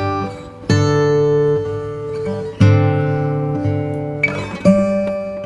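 Background music: an acoustic guitar strumming chords, a new chord struck about every two seconds and left to ring.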